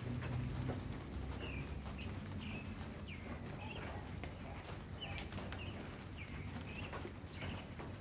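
A small bird chirping over and over, short downward-sliding notes roughly once a second, over a faint outdoor background. A low rumble dies away in the first second.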